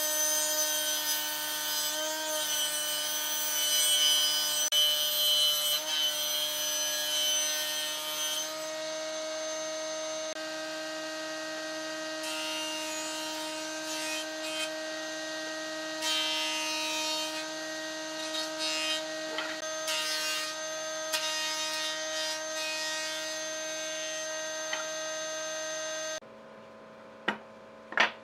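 Combination woodworking machine running with a steady motor hum, its circular saw ripping a log for about the first eight seconds, then its jointer cutters planing the log in a few short passes. About two seconds before the end the machine sound stops abruptly, followed by two sharp knocks.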